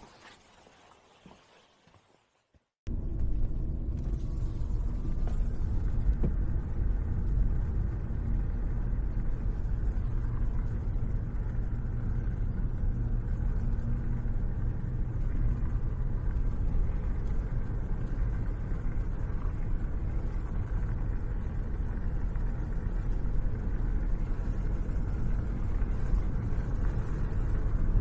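Near quiet for the first few seconds, then from about three seconds in the steady low rumble of a cargo van driving, heard from inside the cab: engine and road noise with no change in pace.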